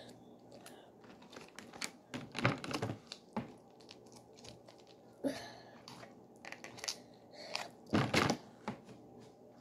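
Plastic piping bags of icing crinkling and rustling as they are handled and squeezed, with scattered small clicks and two louder rustles, about two and a half seconds in and about eight seconds in.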